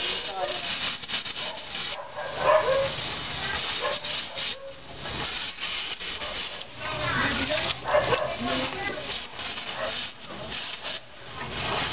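Gas welding torch hissing and crackling as its flame melts into rusted sheet steel, the noise rising and falling unevenly with short dips.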